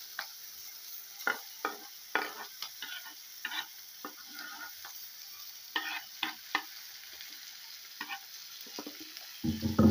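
Diced tomatoes scraped off a chopping board with a wooden spoon into a pot of frying chicken: irregular scraping taps and clicks over a faint, steady sizzle.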